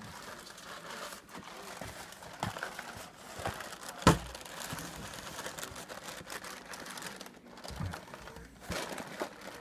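Cardboard cereal box rustling and crinkling as a dog's head rummages around inside it, with scattered small clicks and one sharp knock about four seconds in.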